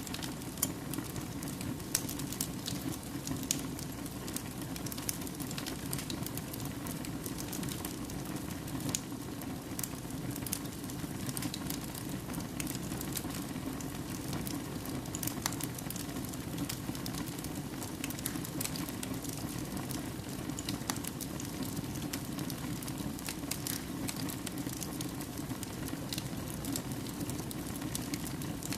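Wood fire burning in a fireplace, crackling with frequent irregular sharp pops over a steady low rush.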